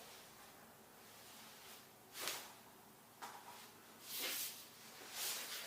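Faint short swishes, four of them about a second apart starting about two seconds in, as a person lying face down rocks the hips and grinds them against the floor.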